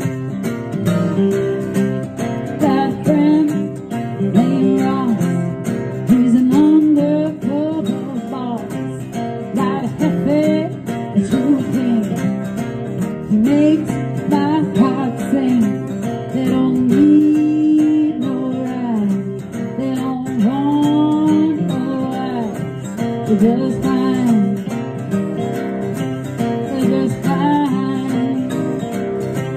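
Two acoustic guitars strummed together while a woman sings a melody.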